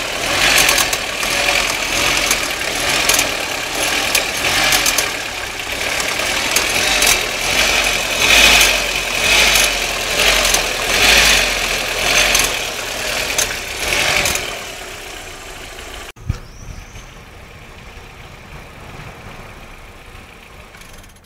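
Audi 1.8T (AEB) turbocharged four-cylinder engine running with a strange metallic clicking noise, its level swelling up and down repeatedly. About fifteen seconds in the sound fades away, a single sharp click comes about a second later, and a much quieter sound is left.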